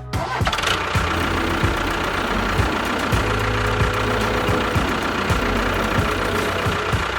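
Small engine of a home-built mini bulldozer running steadily with a whine, and a low thump recurring about twice a second.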